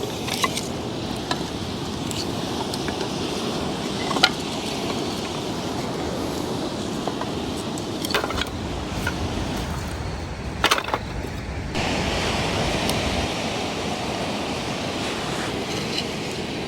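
Steady rush of wind and surf with a few sharp, scattered cracks from a freshly lit campfire of cinnamon firewood catching.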